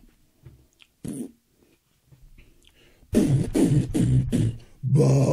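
A man's voice making wordless mouth noises: a short one about a second in, then two loud stretches of wavering, warbling sound from about three seconds in.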